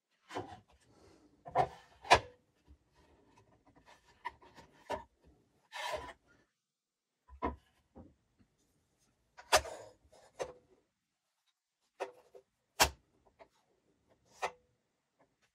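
Plastic digital gauge handled and set down on a plywood router table: about ten scattered clicks and knocks, with a short scrape as it slides across the wood.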